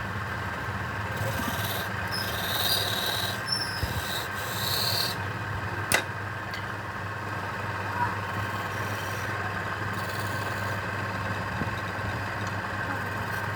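Wood being rubbed or rasped in several scraping passes during the first five seconds, over a steady machine hum. A sharp click comes about six seconds in.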